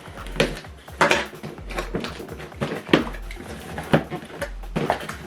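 Soundbar packaging being unpacked by hand: cardboard and packed items knocking and scraping in a series of irregular sharp knocks and rustles.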